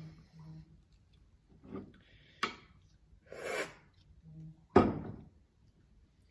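Tableware sounds: a spoon and chopsticks scraping and knocking against bowls and plates, a few separate clinks and rubs, with one sharp knock near the end.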